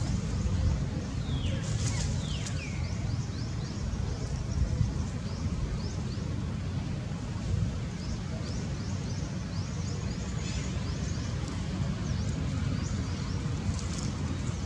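Outdoor ambience of a steady low wind rumble on the microphone, with many short, high animal chirps throughout and a couple of falling squeals about two seconds in.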